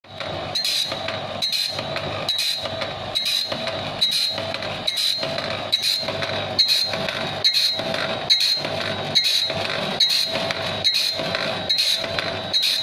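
Saw-sharpening machine running in a steady repeating cycle, a little faster than once a second, with a short high-pitched ring at each stroke.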